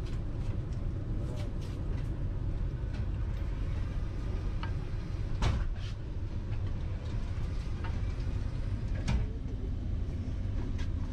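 Steady low rumble inside the passenger coach of a Vande Bharat Express (Train 18) electric trainset running, with a few sharp clicks and knocks, the loudest about five and a half seconds in and again about nine seconds in.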